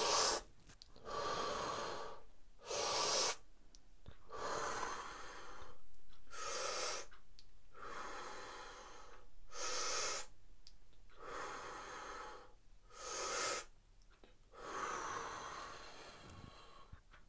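A man doing Wim Hof breathing: deep, forceful breaths in and out through the mouth in a steady rhythm, one full breath about every three seconds, five or six times.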